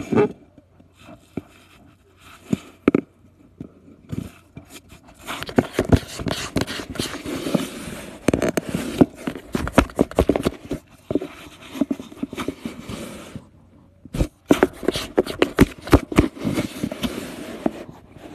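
A cat scrabbling at a cardboard box: irregular scratching and knocking of claws on cardboard, sparse at first and busy from about five seconds in, with a short pause near the end.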